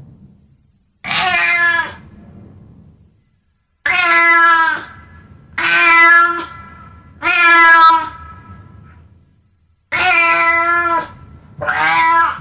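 Domestic cat meowing repeatedly: six loud calls of about a second each, evenly pitched and dropping slightly at the end, with short pauses between them.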